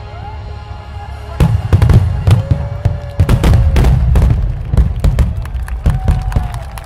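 Fireworks going off: a rapid volley of sharp bangs and crackles with deep booms, starting about a second and a half in. Music plays underneath.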